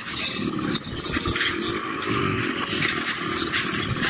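Motorcycle engines running nearby, a steady rumbling traffic noise.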